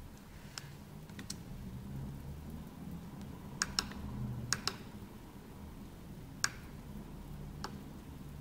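Scattered clicks from a laptop's keys and touchpad buttons, about eight in all, some in quick pairs, over a low steady hum.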